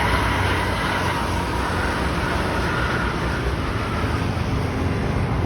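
Steady road traffic noise: vehicles, buses among them, running past on the toll road, with no horn sounding.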